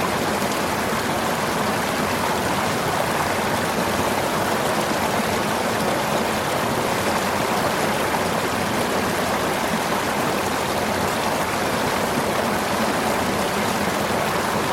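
River water running and rushing over rocks in a steady, even flow.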